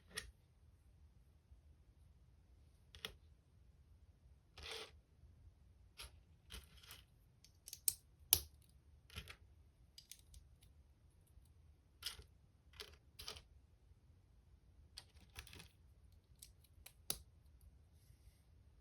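Plastic LEGO bricks clicking and snapping as they are handled and pressed together: irregular sharp clicks, about a dozen, with a short rustle a few seconds in.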